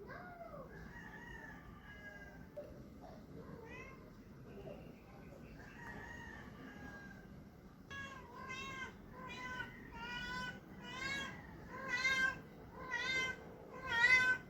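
A domestic cat meowing: faint, scattered calls at first, then about halfway through a quick run of short meows, roughly one a second, that grow louder toward the end.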